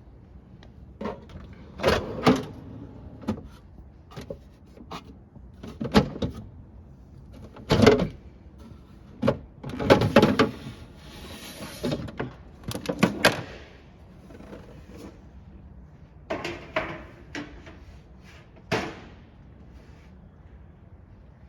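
Refrigerator door and plastic drawers being handled: irregular knocks and clatters, with a longer sliding scrape about halfway through.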